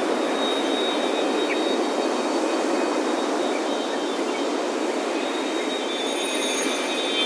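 Ocean surf washing steadily on a beach, with wind chimes ringing over it; a fresh cluster of higher chime notes rings out near the end.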